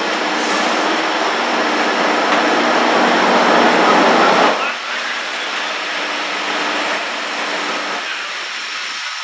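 Metrolink passenger train with an EMD F59PH diesel locomotive going by close. A steady engine hum runs under the rush of the train, which grows loudest about four seconds in and then drops off suddenly.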